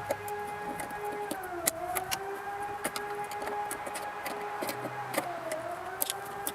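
A motor hums steadily at one pitch, which sags and recovers twice, briefly about a second and a half in and again near the end, with scattered light clicks and taps of hand tools over it.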